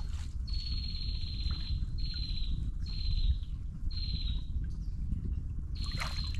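A bird giving a series of harsh, raspy calls, each slightly falling in pitch, about one a second with a short pause before the last, over a steady low rumble. A sharp knock sounds near the end.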